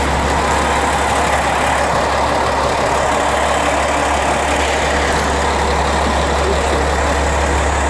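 KiHa 47 diesel railcar's engine idling at the platform: a steady, unbroken low hum.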